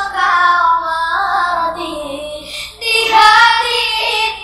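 A young voice singing a pop-style ballad line over backing music. The phrase breaks off about two seconds in, and the voice comes back louder near three seconds in.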